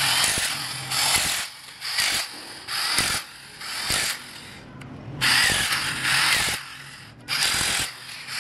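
Impact wrench rattling in short bursts on an engine's cylinder head bolts, about eight bursts with brief pauses as it moves from bolt to bolt.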